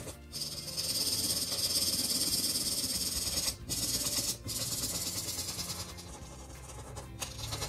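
Broad-tip marker rubbing back and forth across paper as it fills in colour, a steady scratchy hiss. The hiss breaks off briefly where the tip lifts: once at the start, twice in the middle and once near the end.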